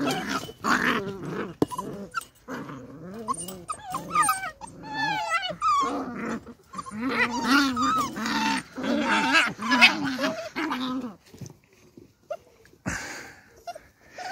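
Beagle puppies play-fighting, growling with high, wavering yelps and whines. The vocalising is busy for most of the time and thins out near the end.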